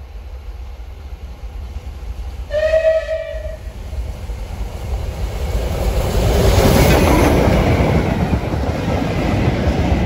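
Rebuilt West Country class steam locomotive 34046 Braunton sounds a short whistle blast about two and a half seconds in, lasting about a second. It then passes close by at speed with its train, the rush of engine and wheels on the rails growing to its loudest near the middle and staying loud to the end.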